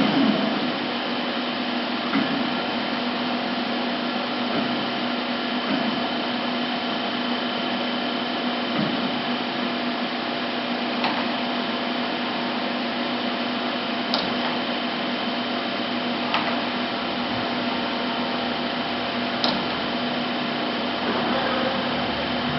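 Romi M27 CNC lathe running: a steady machine hum with a few faint clicks here and there.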